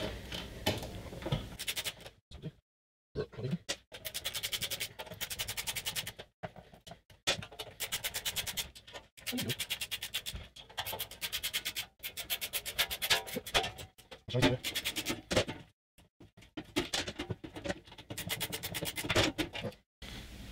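A screwdriver backing out the screws of a MIG welder's sheet-metal side cover, heard as repeated runs of rapid, even clicking with short pauses between them.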